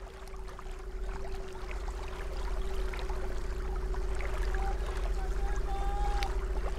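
Outboard motor of a small motor canoe running at steady speed: a constant hum over a low rumble, with water rushing past. It fades in over the first second.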